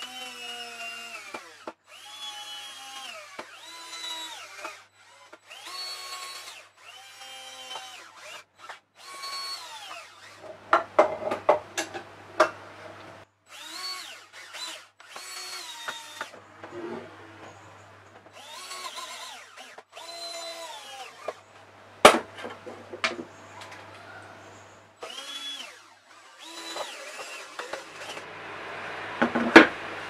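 DeWalt cordless drill boring into pine in about ten short bursts. Each time the motor whines up to speed and its pitch sags as the bit bites. A few sharp wooden knocks come between bursts.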